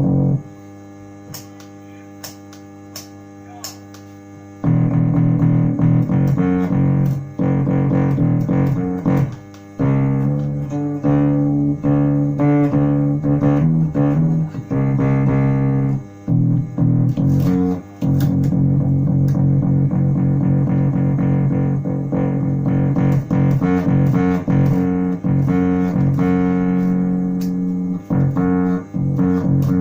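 Electric bass played through a homemade onboard passive diode fuzz built from four 1N5819 Schottky diodes, giving distorted bass notes and riffs. For the first four seconds only a steady hum with a few small clicks is heard, typical of the circuit's unshielded wiring.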